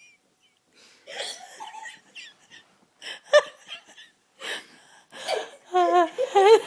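People hiccuping and laughing: a few short, sharp hiccups a second or so apart, then a high, wavering giggle near the end.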